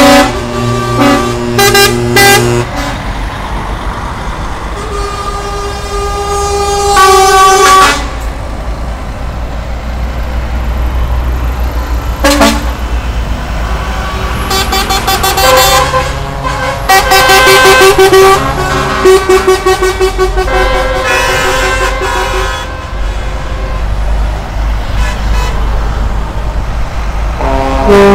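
A convoy of heavy trucks passing one after another, their diesel engines rumbling low while the drivers sound their horns again and again, in short toots and longer blasts of several tones.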